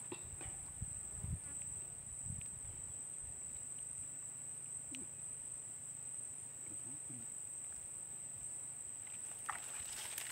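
Steady high-pitched chirring of insects, unbroken throughout, with a few soft low thumps in the first two seconds.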